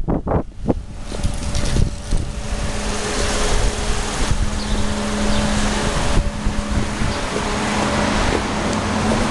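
Steady mechanical hum over a rushing noise, setting in about a second in, with a low droning tone held throughout, like a nearby motor or engine running.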